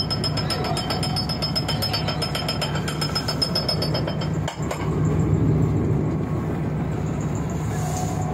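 Fishing boat's engine running steadily with a rapid clatter over a low hum; the sound drops out for a moment about halfway through, then the hum carries on.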